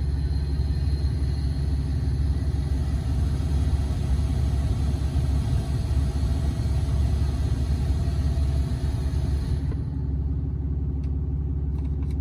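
HVAC blower motor of a 2010 Dodge Ram 2500 running on its highest setting, air rushing through the cab vents over the Cummins diesel's low idle rumble. About ten seconds in, the blower suddenly cuts out and only the idling diesel is left. The motor is failing and shutting itself off, which the owner suspects is worn brushes.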